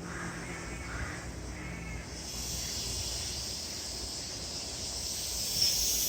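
A crow caws a few times in the first two seconds, over the low rumble of an arriving container freight train; from about two seconds in a high hiss from the train swells and grows steadily louder.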